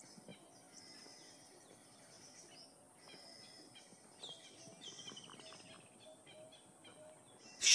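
Faint birdsong: scattered short, high chirps and down-sweeping calls, with a brief trill about halfway through, over a quiet outdoor background.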